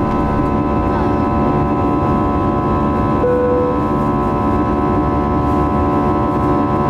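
Airbus A320 jet engines at takeoff thrust, heard inside the cabin during the initial climb: a steady engine noise with several steady tones over a deep rumble. A short tone sounds briefly about three seconds in.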